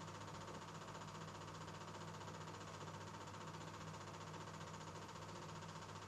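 Faint steady electrical hum with a light hiss, unchanging throughout: background noise of the recording under silent archival film.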